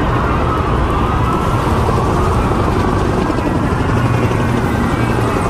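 Military helicopter flying low overhead: steady rotor and engine noise, with a turbine whine that glides in pitch as it passes.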